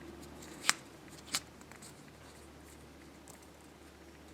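Small parts of a shaft-and-ball-bearing guide assembly being handled and fitted together: two sharp clicks, the first louder, about two-thirds of a second apart, then faint handling noise.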